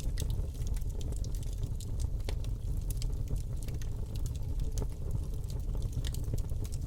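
Wood fire burning in a fireplace: a low steady rumble of the flames with frequent small crackles and snaps of the burning wood, a few louder pops among them.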